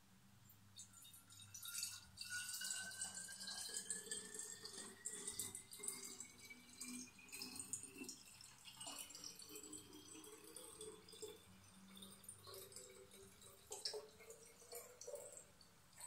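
Lemon-infused vinegar trickling from a glass jug into a narrow-necked glass bottle, with a tone that rises steadily in pitch as the bottle fills.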